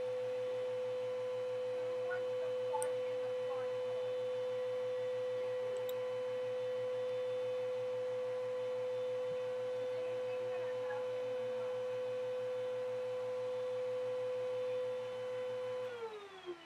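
Vacuum cleaner motor running with a steady whine, then shut off near the end and winding down in pitch.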